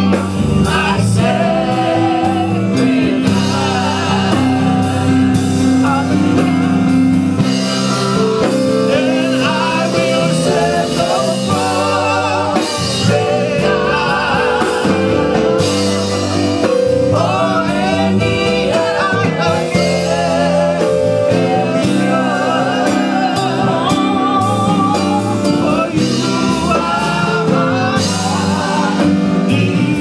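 Live gospel praise-and-worship singing: women's voices singing with a wavering vibrato into microphones over an electric keyboard and acoustic guitar, amplified through a PA.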